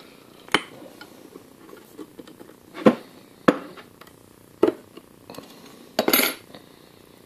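Locking pliers (vise grips) clicking and clinking against a steel plate and a wooden chair rail while a staple is levered out of the wood. There are about five separate sharp metallic clicks, with a louder double clink about six seconds in.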